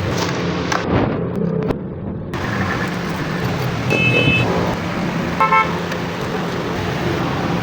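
Motorcycle engine running steadily, with two short vehicle horn toots, about four and about five and a half seconds in.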